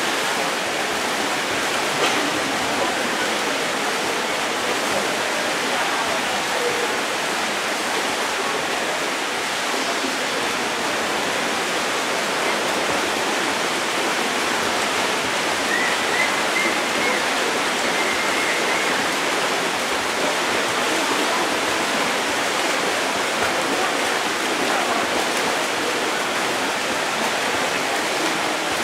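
Steady wash of splashing water from swimmers racing freestyle in an indoor pool, echoing in the hall. A faint high tone comes through briefly about halfway.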